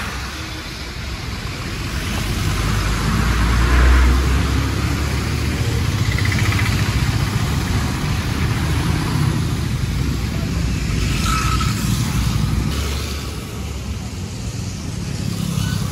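A heavy vehicle's engine running, with a low rumble that swells about four seconds in, over a steady hiss of tyres and rain on a wet road.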